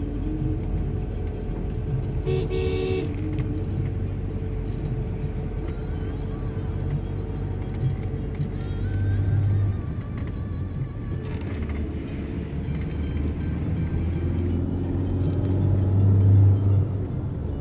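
Steady low rumble of a car driving on a mountain road, with a short horn toot about two and a half seconds in and the engine note swelling twice, near the middle and near the end.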